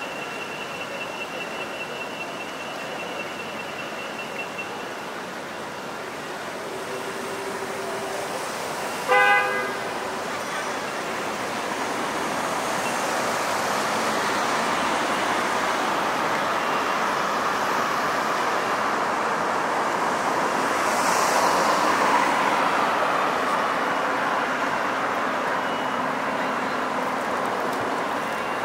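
Steady city street traffic noise that grows louder in the second half. A vehicle horn toots once, briefly, about nine seconds in.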